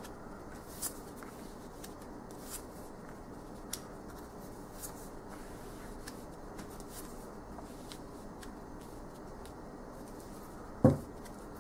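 Tarot cards being dealt from a deck and laid down one by one onto a cloth-covered table: faint soft clicks and slides every second or so, then one louder thump near the end.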